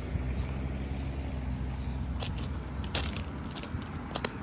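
Footsteps crunching on dry leaves and twigs along a dirt trail, with a run of sharp crackles in the second half. A low rumble sits under the first half.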